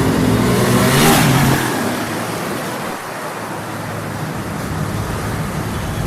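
Small motorcycle engine revving as it accelerates past, loudest about a second in, then settling to a steadier, quieter running sound as it moves away.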